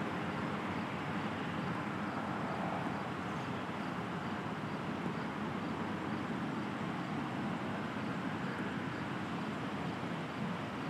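Steady rushing background noise with no distinct events and no speech.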